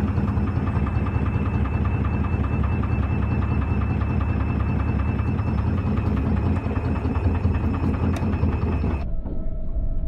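Front-loading washing machine running its wash: steady motor hum and rumble as the drum tumbles wet clothes through the water. About nine seconds in, the sound abruptly turns duller and muffled.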